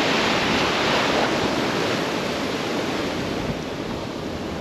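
Ocean surf breaking and foaming water washing through the shallows, easing off gradually toward the end.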